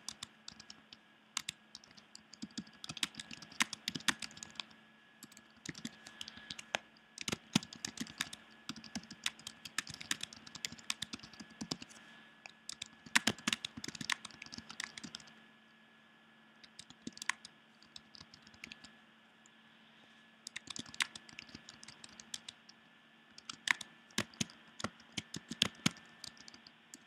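Typing on a computer keyboard: quick runs of key clicks, with short pauses, the longest a little past halfway through.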